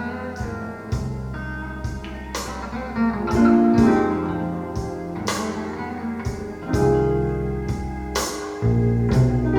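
Blues recording played back over Bowers & Wilkins 705 Signature loudspeakers: an instrumental passage of guitar over bass, with drum hits, between sung lines.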